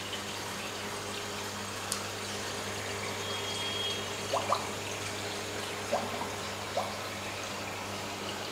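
Aquarium water circulating with a steady hiss and low hum, broken by a few short plops between about four and seven seconds in.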